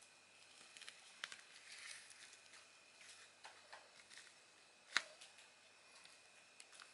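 Faint handling noises of a metal electric lighter over bubble wrap: scattered small clicks and a brief rustle, then one sharp click about five seconds in as the lighter is set down.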